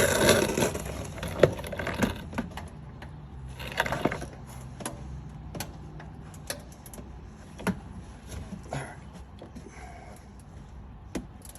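Scattered clicks, knocks and short rustling bursts of hands handling tools and parts, over a low steady hum.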